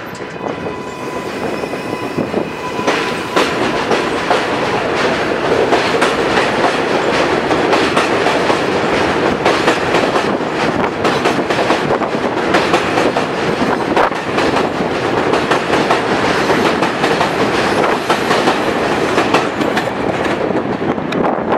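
R188 subway train pulling out of an elevated station and running past at close range: a dense rumble of wheels on the rails with a steady clatter of clicks over the rail joints, growing louder over the first few seconds. A steady high tone sounds at the very start and stops about three seconds in.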